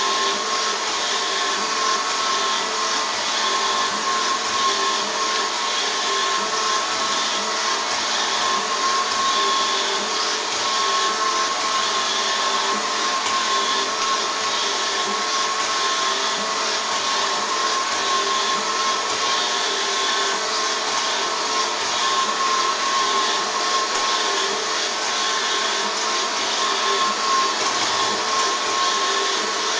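Robot vacuum cleaner running steadily: a continuous motor whir with a steady whine.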